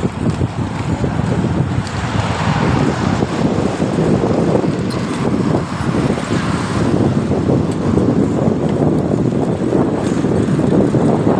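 Steady rolling rumble of roller-skate wheels on asphalt, mixed with wind buffeting the phone's microphone as it moves along the road.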